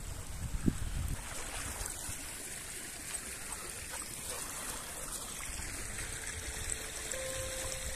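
Steady rushing of flowing water, like a stream running through flooded ground, with some low wind buffeting on the microphone in the first second.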